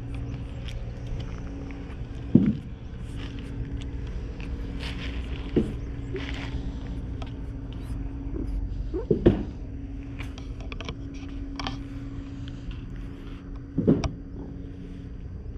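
Tabby cat purring steadily right at the microphone, a low, even rumble, broken four times by a short, louder low sound.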